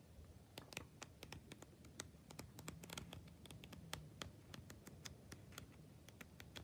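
Faint paper ticks from the pages of a small paper flip book being thumbed through, several irregular flicks a second.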